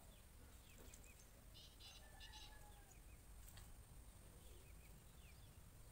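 Near silence with faint bird chirps in the background, a quick cluster of three short high chirps about two seconds in.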